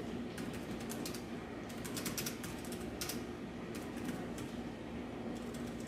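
Typing on a compact Bluetooth keyboard for an iPad Air: quick, light key clicks in irregular runs, with short pauses between bursts.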